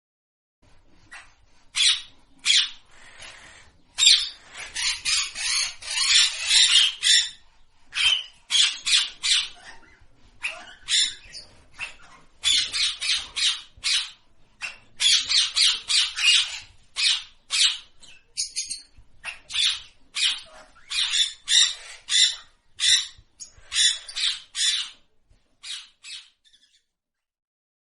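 A parrot calling over and over: short high-pitched calls, some in quick runs, with brief pauses between them.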